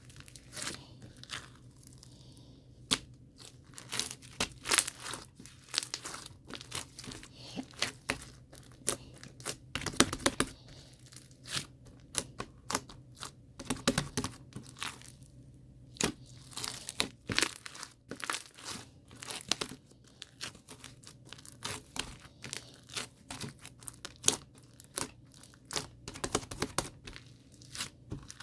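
Irregular crinkling and crackling of something being handled, made up of many sharp clicks at an uneven pace.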